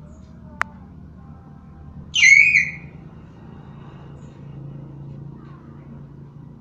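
Hill myna giving one loud, short whistled call about two seconds in, preceded by a single sharp click, over a steady low hum.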